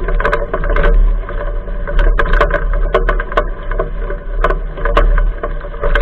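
Mountain bike rolling fast over a leaf-littered forest trail: a steady rumble with frequent irregular sharp knocks and rattles as it jolts over bumps.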